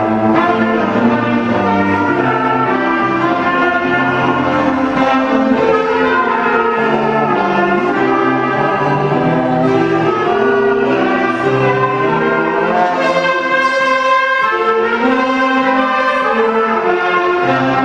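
Student ensemble of violins, cello, saxophones and trumpets playing the school song, with the brass to the fore in steady, held chords.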